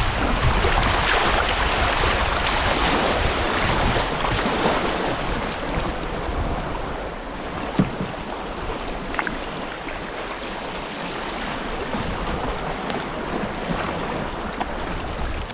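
Rushing water of a shallow river riffle churning around a canoe, with wind buffeting the microphone; the rush eases about halfway through. A single sharp knock about eight seconds in.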